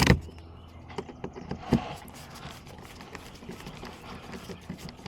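Hand tools and loose parts being handled during car door panel removal: a loud knock at the very start, a second one a little under two seconds in, and lighter clicks and taps in between.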